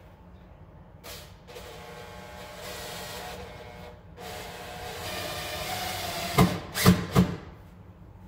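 Power drill running in two bursts of a couple of seconds each, the second louder, as it drives screws into the cabinet. Three sharp knocks follow near the end.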